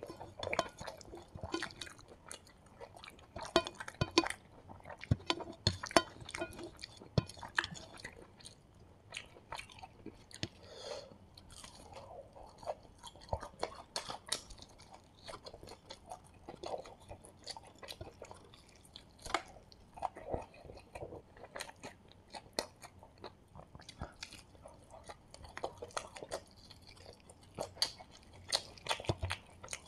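Close-miked chewing and biting of a fried chicken drumstick, with irregular sharp clicks and wet mouth smacks.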